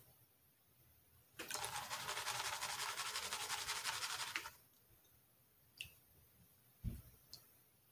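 Plastic gold pan shaken under water in a tub of paydirt: about three seconds of fast, rhythmic swishing and sloshing, the shaking that settles the heavy material to the bottom of the pan. After it come a few light clicks and a low bump near the end.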